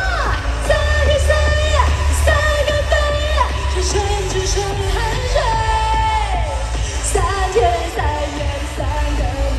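A pop song performed live at a concert, with a singer over a full band and a steady bass line.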